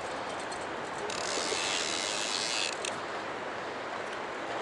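Centerpin reel spinning, a high buzz starting about a second in and lasting about a second and a half before stopping abruptly, over the steady rush of river water.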